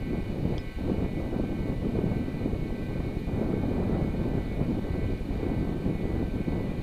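Wind rumbling on the camcorder microphone: a steady low noise that swells and dips, with faint steady high tones above it.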